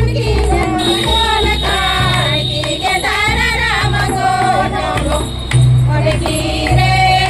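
A group of women singing a Kharia (Khadia) tribal folk song in unison, with a large drum beating a steady low rhythm about once a second.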